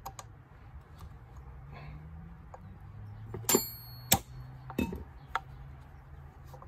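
A steel hammer and center punch clinking against metal tools: four short sharp metallic knocks around the middle, the first one ringing.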